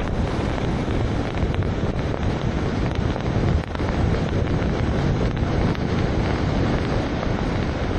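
Steady rushing noise of wind on an outdoor security camera's microphone, filling the sound without letting up.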